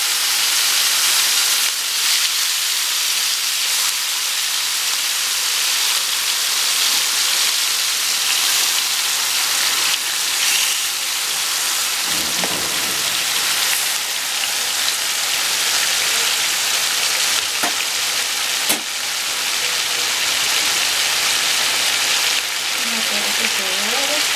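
Marinated beef steaks frying in hot oil in a nonstick frying pan: a steady sizzling hiss. A few light knocks come around the middle, when the meat is moved in the pan.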